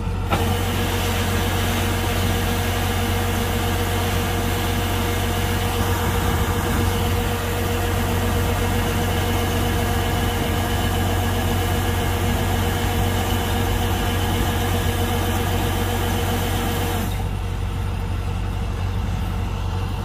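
Kubota DC-105X combine harvester's diesel engine running steadily with a low hum. A bright hiss rides over it until it cuts off abruptly about three seconds before the end, leaving the engine hum alone.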